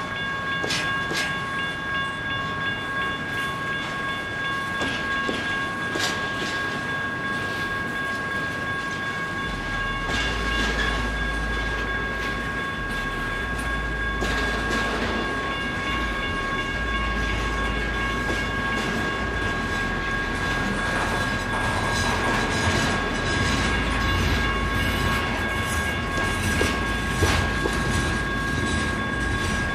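CSX double-stack intermodal freight train rolling through a grade crossing: wheels rumble and clack over the rail joints, growing louder about ten seconds in. The crossing's warning bell rings steadily over it throughout.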